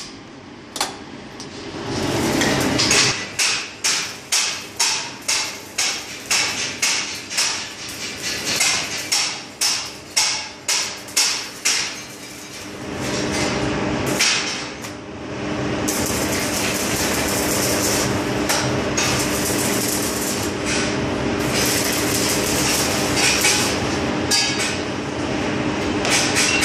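A steel chipping hammer strikes a fresh weld about twice a second, knocking the slag off the bead. About thirteen seconds in, the strikes stop and a steady crackling hiss of electric arc welding with a low hum takes over.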